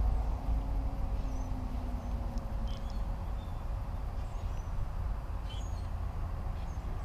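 Outdoor background: a steady low rumble with a faint engine hum from traffic on the nearby road, and a few faint high chirps.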